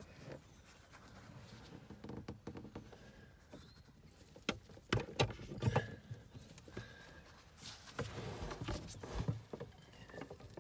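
Irregular light knocks and rustling of handling as gloved hands and the camera move around a plastic consumer unit, with a cluster of sharper knocks about halfway through and more near the end.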